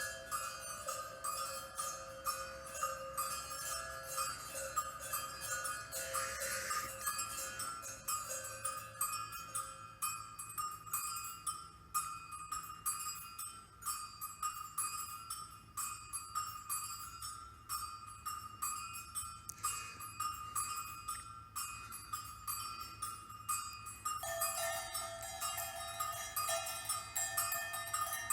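Rapid, continuous tinkling of small bells over sustained ringing tones. A new, lower ringing tone comes in about 24 seconds in.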